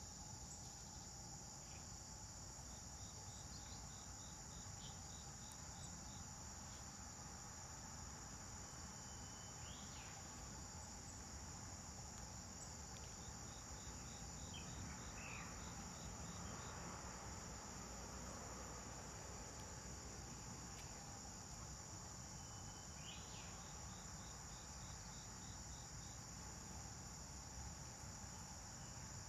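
Steady high-pitched insect chorus with no pauses. Short trains of quick chirps come through three times, roughly ten seconds apart.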